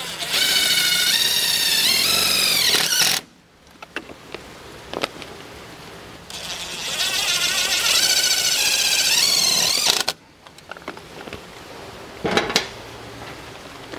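A handheld power drill/driver running in two bursts of about three seconds each, its whine winding down as each burst ends, with a short third burst near the end: screws being driven out of the control box.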